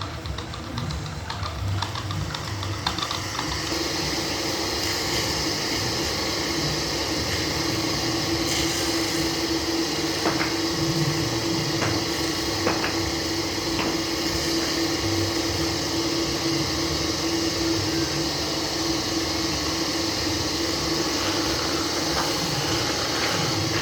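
Lathe running steadily with a constant hum, its sound growing louder and fuller about three seconds in, with a few light clicks around the middle.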